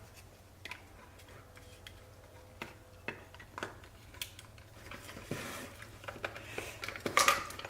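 Small clicks and taps from handling a bulk film loader and 35mm film cassette, sparse and faint at first, with busier handling noise over the last few seconds.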